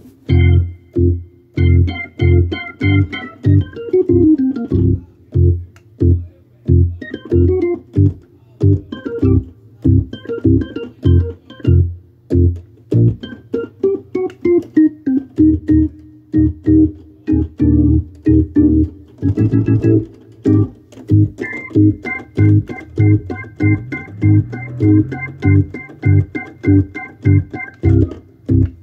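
Hammond organ played in short, rhythmic chord stabs over a pulsing bass line, with one chord held steady from about two-thirds of the way through until near the end.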